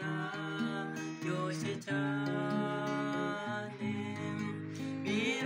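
A man singing a Kinyarwanda gospel song, holding long notes, over a strummed Yamaha acoustic guitar.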